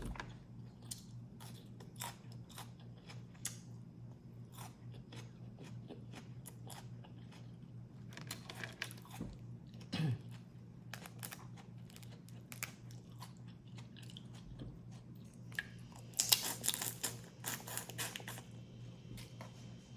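Close-up eating of a crawfish boil: chewing, biting and crunching, with scattered wet clicks and a denser burst of crackling and crunching near the end. A brief falling mouth sound comes about halfway.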